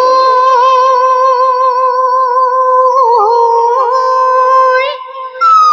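Pepa (Assamese buffalo-horn pipe) holding one long, steady note with a few quick ornamental dips, unaccompanied by drums. It breaks off shortly before the end, then comes back on a higher note that slides up and down.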